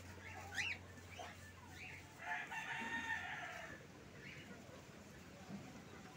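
A rooster crowing once, about two seconds in, for roughly a second and a half, with a short bird chirp just before it.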